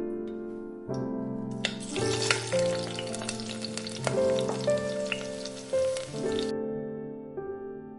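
Hot tempering oil (tadka) with fried onions and whole dried red chillies hitting cooked chana dal, sizzling and crackling from about two seconds in until it cuts off suddenly near the end. Soft piano music plays throughout.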